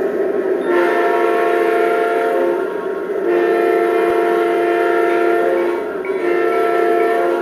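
A model diesel locomotive's onboard sound system playing a multi-chime air horn: two long blasts, with a third starting near the end, over a continuous steady diesel engine sound.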